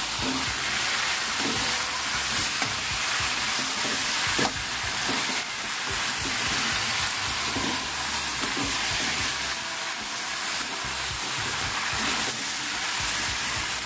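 Curry-coated chicken, potato and carrot chunks sizzling in a hot wok while a spatula stirs and turns them, a steady frying hiss with the scrape and shuffle of the food being moved.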